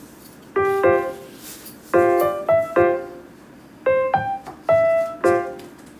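Background piano music: short phrases of struck notes and chords that ring and fade, with pauses between the phrases.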